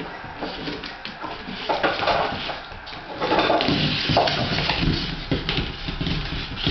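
A basket being shoved, scraped and knocked across a tile floor by a small dog at play, in irregular bursts of knocks and scrapes.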